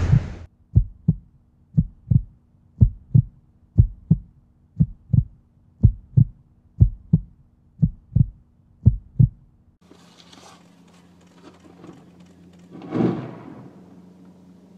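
Heartbeat sound: a double lub-dub thump about once a second, nine beats, stopping about ten seconds in. Faint hiss follows, with a brief swell near the end.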